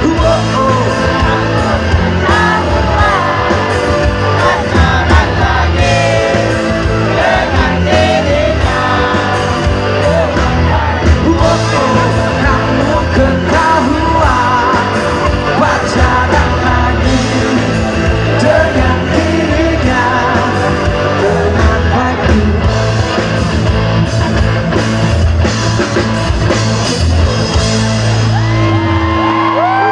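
Live rock band with drums, bass, electric guitar and a sung lead vocal playing a pop-rock song in a large hall. The band stops right at the end.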